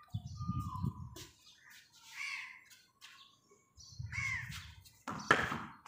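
Crows cawing, two calls about two seconds apart, over low bursts of rumble. A loud, sudden sharp sound comes near the end.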